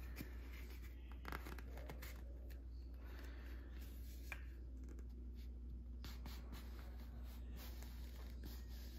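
Faint scraping and rubbing of a cardboard flock applicator tube as its two halves are slowly slid together by hand, with a few light taps and clicks, over a steady low hum.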